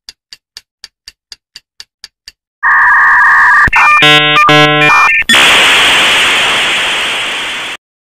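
Cartoon sound effects: a run of sharp ticks, about four a second, then loud electronic buzzer tones for about two and a half seconds, switching between a steady two-note buzz and a stepped, pulsing one. Then a loud hiss that slowly fades away.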